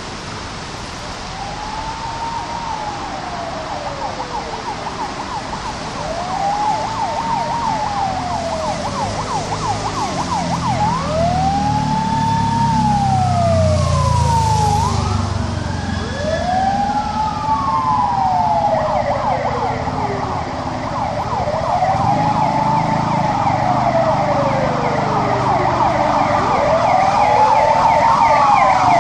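Emergency-vehicle sirens wailing, each cycle rising quickly and then sliding down over about five seconds, growing louder as they approach. A second, higher siren overlaps from about a third of the way in, over a steady hiss of rain and a low engine rumble.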